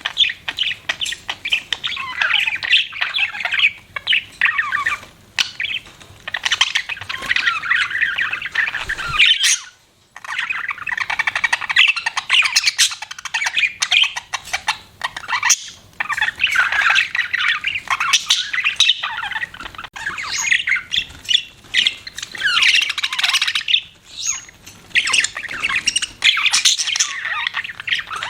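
Budgerigars chirping and chattering in busy, rapid warbling phrases, with a brief break about a third of the way through.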